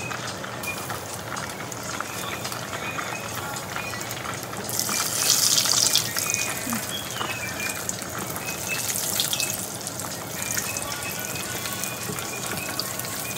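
Floured fish pieces deep-frying in a pan of hot oil: a steady sizzle that swells loud for about a second midway, as more pieces go into the oil.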